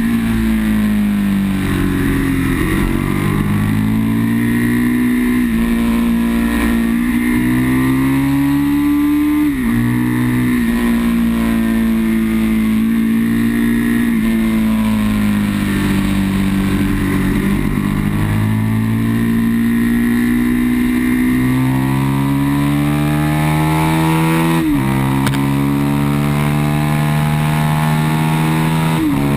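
Aprilia sport motorcycle engine at full song on track, heard from on board: the revs climb and fall repeatedly as the rider accelerates, shifts gear and rolls off for corners, with sudden pitch jumps at gear changes about ten seconds in and twice near the end.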